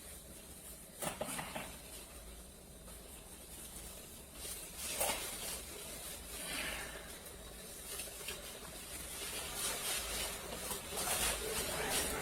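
Faint rustling and a steady high hiss, with a few soft clicks, the first about a second in and another about five seconds in; the rustling grows louder near the end.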